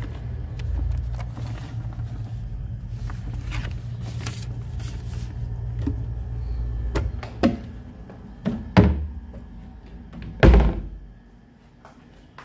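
A low rumble of a handheld phone's microphone being jostled, then several sharp thunks in the second half, the loudest a little over ten seconds in.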